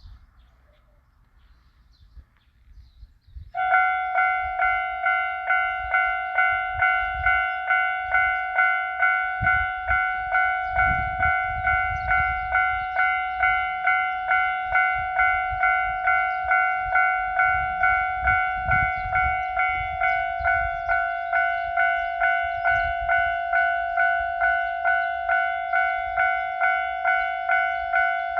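Japanese railway level-crossing alarm bell starts about three and a half seconds in and dings steadily, about twice a second, warning that a train is approaching. A low rumble runs underneath.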